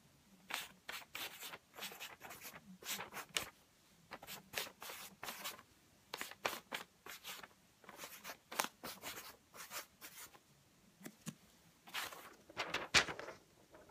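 Clothing rustling and scraping in short, irregular bursts as the arms move inside a hooded jacket, loudest near the end.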